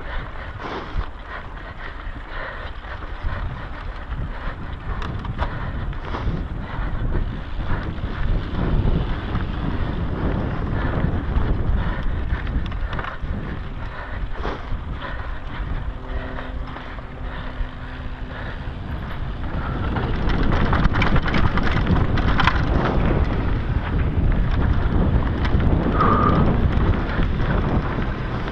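Mountain bike ridden fast down a dirt trail: wind buffets the microphone over the noise of knobby tyres on dirt and the bike rattling on the rough ground. The noise gets louder about two-thirds of the way through.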